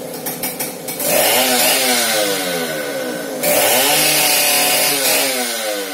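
A small petrol engine is revved twice, each time its pitch jumping up sharply and then slowly falling away. Just before that come a few light metallic clicks from a screwdriver working on a small carburetor.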